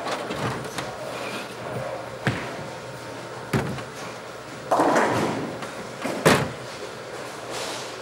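Bowling alley sounds: a few sharp knocks of balls and lane machinery, and about five seconds in a clatter of about a second, a strike sending pins crashing and scattering, with the loudest knock following just after.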